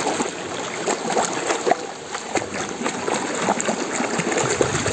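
Water splashing and sloshing as a hand swishes a plastic toy excavator back and forth in shallow running water: many small irregular splashes over a steady rush of water.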